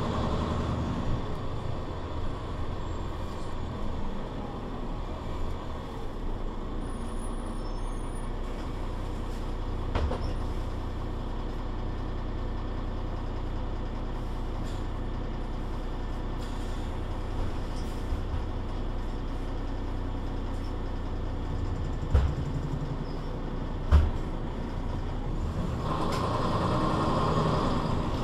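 Mercedes-Benz Citaro C2 city bus running with a steady low engine drone. There is a sharp knock about ten seconds in and two more later on, and the sound grows louder near the end.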